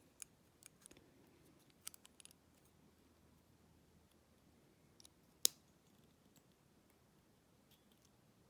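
Small metal clicks and ticks of a tool working at a padlock core's C-clip, a few in the first couple of seconds, then one sharp louder click about five and a half seconds in, between long quiet stretches.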